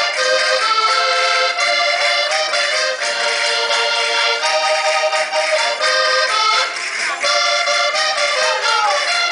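Accordion-led Portuguese folk dance music: a lively traditional tune over a steady rhythmic beat.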